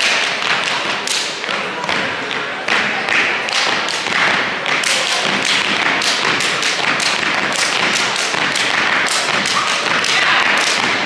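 A step team stepping on a hardwood gym floor: a fast run of stomps and claps in unison, over crowd noise.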